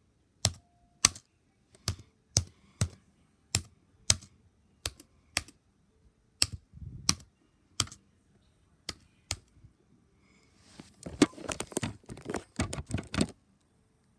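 Mechanical keyboard typed one key at a time: separate, sharp keystrokes about one a second, then a quick flurry of keys near the end that stops abruptly.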